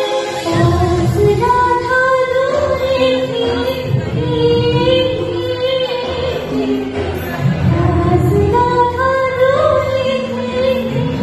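A woman singing solo into a microphone, amplified through a hall's sound system, with a wavering vibrato on her held notes.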